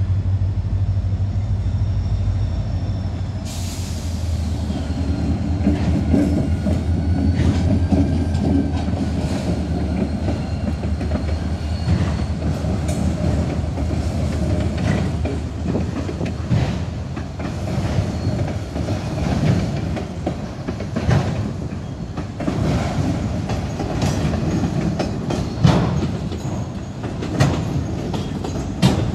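Freight train of autorack cars rolling past, its wheels clacking over rail joints in a continuous rumble. Thin, high wheel squeals come and go over the first dozen seconds.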